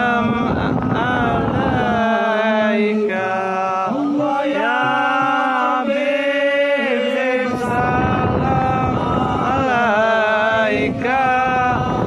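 A man sings a chant-like melody through a microphone, holding long notes that bend in pitch. Kompang hand frame drums beat along for the first couple of seconds, drop out while he holds notes, then come back in about halfway through.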